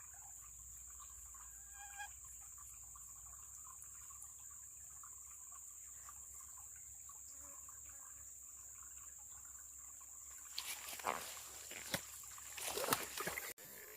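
Water of a small river trickling under a steady high-pitched hiss. A few louder, short splashy noises come near the end.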